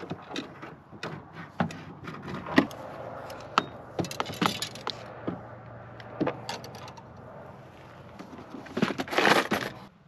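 Fishing gear being handled: scattered knocks and clicks as a fishing rod is drawn from a storage box and its sections are fitted together. A louder burst of rattling near the end comes from the plastic tackle box.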